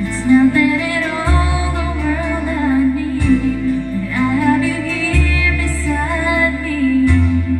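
A woman singing an English pop ballad into a karaoke microphone over a karaoke backing track, the bass note changing every couple of seconds.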